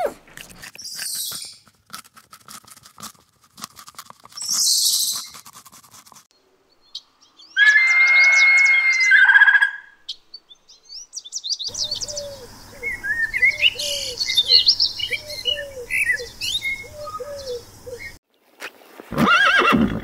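A run of animal calls. First come some clicks and two short hissy bursts. Then a bird of prey's loud, drawn-out scream about eight seconds in, a few seconds of birds chirping over a repeated lower note, and a horse neighing near the end.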